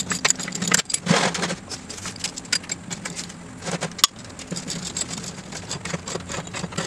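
A metal wrench clinking and clicking against bolts and frame hardware at the rear of a motorcycle, in irregular bursts, with one sharp knock about four seconds in.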